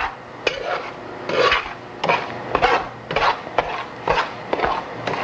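A metal spoon scraping and stirring cream of wheat roasting in ghee across the bottom of a metal frying pan, in regular strokes about two a second, kept moving so it does not stick to the bottom.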